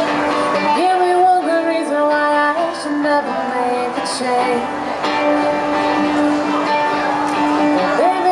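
A woman singing into a microphone with acoustic guitar accompaniment, in a live acoustic duo performance, her voice holding long notes.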